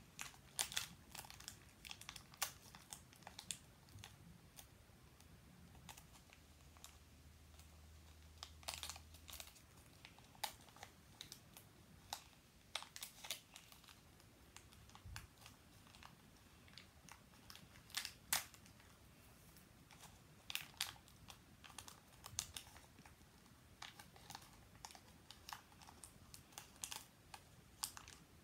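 Small plastic toy packaging being picked and worked open by fingers and nails: faint, irregular crinkles and sharp little clicks of plastic.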